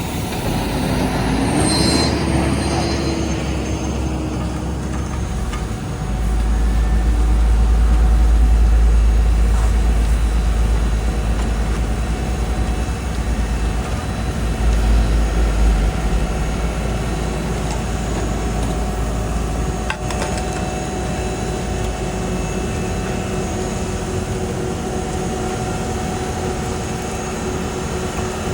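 Heavy diesel road-paving machinery running steadily, with a short rising tone about two seconds in. A deep low rumble swells from about six seconds in and eases off after about ten seconds.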